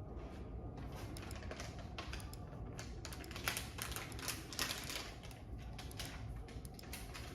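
Akko LW325 mouse button clicked over and over at an irregular pace, sharp clicks several times a second, testing the repaired switch for the double-click fault.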